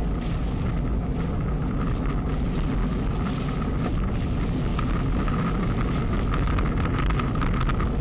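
Steady wind rush buffeting an action-camera microphone while cycling at speed, with road and tyre noise underneath.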